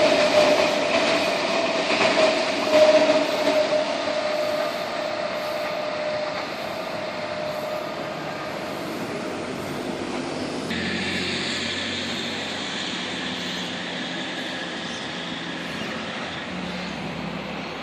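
Passenger train running on rails, with a steady wheel squeal that fades over the first several seconds. About eleven seconds in the sound changes abruptly to a quieter, steady train noise.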